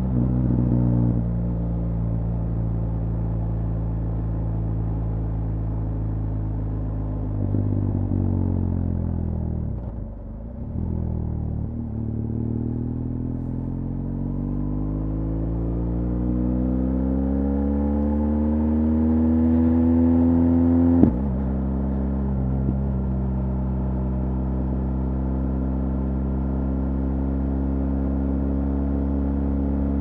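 BMW R1200GS Adventure's boxer twin engine running through an Akrapovic HP exhaust while riding. The revs dip briefly about a third of the way in, then climb steadily in a long rising note for several seconds, drop sharply at a gear change about two-thirds through, and settle into a steady drone.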